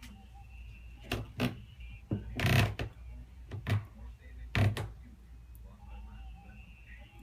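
A run of sharp knocks and clicks, about seven at uneven intervals, the one about two and a half seconds in longer and scraping, over a low steady hum.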